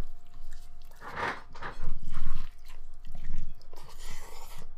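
Biting into and chewing a large beef burrito, in several irregular bursts.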